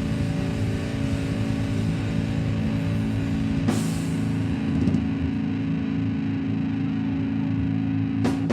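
Live heavy metal band on amplified electric guitar and bass holding a low droning chord, with a cymbal crash about halfway through and a few drum hits near the end.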